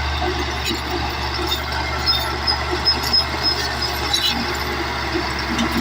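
Caterpillar D8 bulldozer at work: its diesel engine running with a steady low drone, with several short high squeaks and sharp clicks through the middle.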